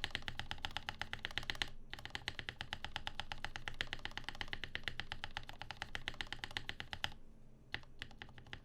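Fast typing on a Rama M65-B mechanical keyboard with lubed Gateron Ink switches on a brass plate, a quick run of keystrokes. It breaks briefly about two seconds in, carries on, then thins out to a few single key presses near the end.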